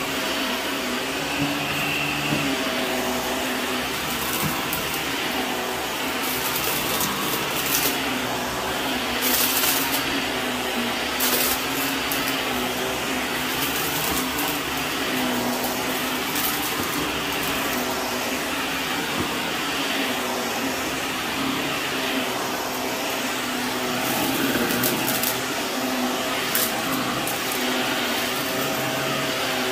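Shark upright vacuum running steadily on carpet, its motor humming under the rush of air. Now and then there is a short crackle as bits of debris are sucked up, in several clusters.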